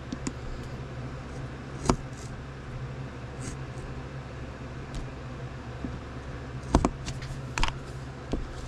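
Utility knife cutting the plastic seal on a small card box: faint scraping and small ticks, with a few sharp clicks of blade and plastic, one about two seconds in and a couple near the end. A steady low hum lies under it all.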